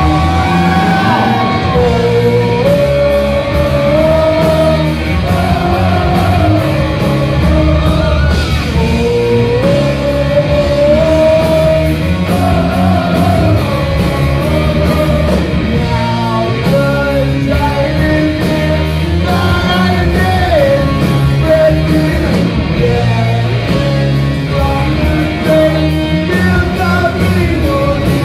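Rock song with a sung lead vocal line over a full band, loud and steady.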